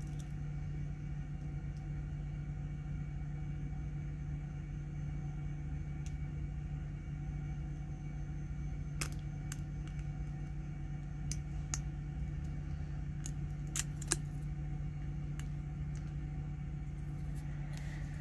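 Small, sharp metallic clicks and ticks of a lock pick and tension wrench working the pins inside a padlock, a few scattered at first and then coming more often through the middle and later part, over a steady low hum.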